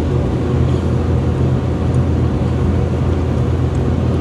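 Reach-in cooler's refrigeration unit running with a steady low hum, the system restarted and pulling the cabinet temperature down.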